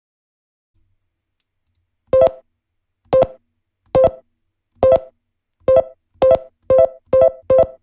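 A short electronic tone sound effect, the same clip each time, played back from TouchDesigner's Audio Play CHOP. It is triggered nine times starting about two seconds in, each a brief pitched blip with a click at its start. The triggers come about once a second at first, then faster, about twice a second near the end.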